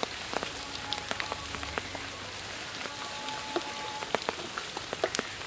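Rain falling on wet ground: a steady hiss with many scattered sharp drop ticks.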